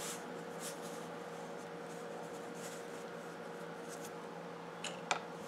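Faint rustling and light scraping of fingers handling a tiny all-in-one FPV camera-transmitter board and its wire lead, over a steady low hum. Two sharper clicks come near the end.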